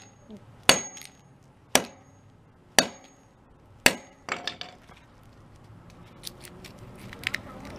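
Claw hammer striking a small speaker driver on concrete four times, about a second apart, each blow a sharp crack and the first three followed by a brief high metallic ring. Lighter clicks and clinks follow near the end.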